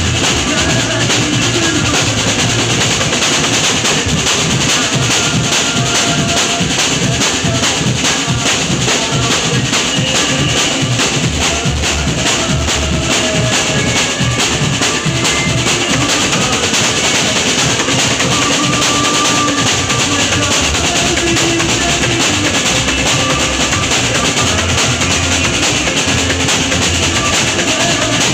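A band playing an instrumental passage with a steady drum and percussion beat, with no singing heard.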